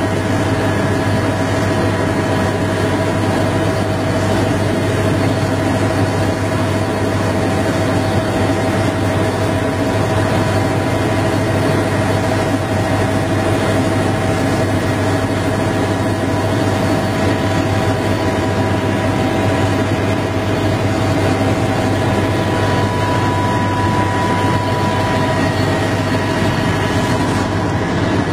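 Helicopter engine and rotor noise heard from on board, steady and unbroken, with a deep drone and a constant whine above it.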